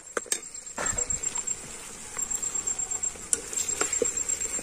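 High, steady insect trill, with scattered light clicks and a soft hiss that starts about a second in.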